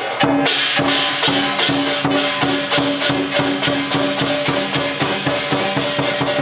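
Lion dance percussion: drum and cymbals playing a fast, steady beat, with a ringing tone held underneath; it gets louder and brighter about a third of a second in.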